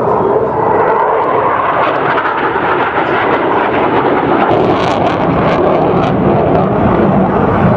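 Loud, steady jet noise from a Eurofighter Typhoon's twin EJ200 turbofans as the fighter flies a display, with a run of sharp crackles about five seconds in.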